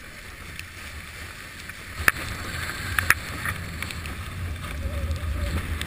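Windsurf board sailing fast over choppy water: a steady rush of water and wind on the boom-mounted camera. A few sharp slaps come about two and three seconds in, and the rush then grows louder with a low rumble.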